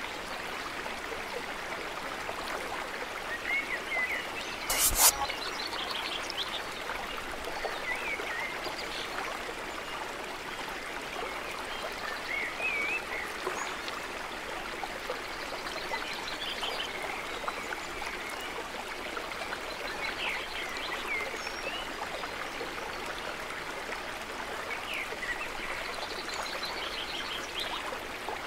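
A small stream and waterfall running steadily, with birds singing short phrases every few seconds and one sharp click about five seconds in.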